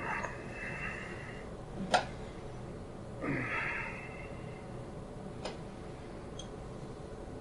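A person breathing out heavily twice, once at the start and again about three seconds in, with a single sharp click between them, the loudest sound, and a few faint ticks later.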